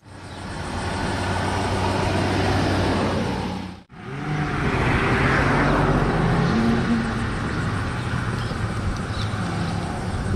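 Road traffic, with a motor vehicle's engine giving a low steady hum over background noise. It fades in at the start and cuts out briefly about four seconds in.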